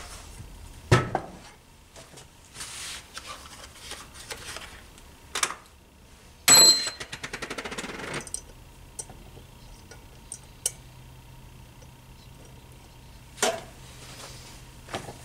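Metal parts of a moped engine being worked on a bench while bearings are fitted into the case: a few sharp knocks, and about six and a half seconds in a loud metallic clink that rings, followed by a quick run of fading clicks. After it a faint steady low hum and a couple of light clicks.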